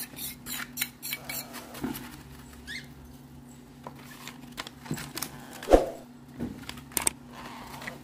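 Parrot chicks shuffling and scratching on newspaper: scattered small clicks, taps and rustles, with a short rising squeak about three seconds in and one sharper tap near the six-second mark.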